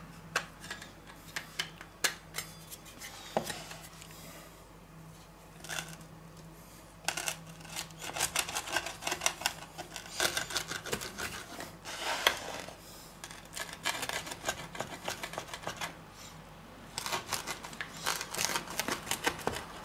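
Moesta pizza wheel rolling and pressing through a baked pizza crust on a wooden board, making crackly, scraping cutting strokes in two long runs. A few sharp clicks come before the cutting starts.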